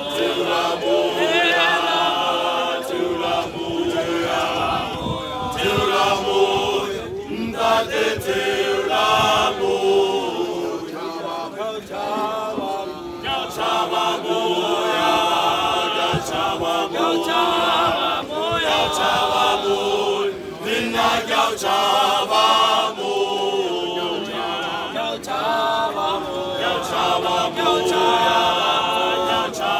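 A male choir singing a cappella in several-part harmony, without a break.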